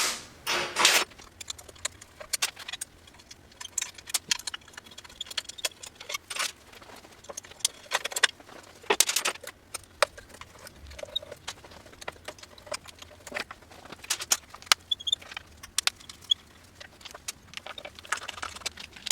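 Scattered metallic clicks and rattles of hand tools and small bolts as the controller and bash-guard bolts come out of an electric dirt bike, in short irregular bursts.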